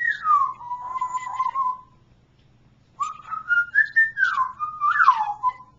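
Parrot whistling: one note slides down and is held, then after a pause of about a second comes a short melodic whistled phrase that steps up and down in pitch.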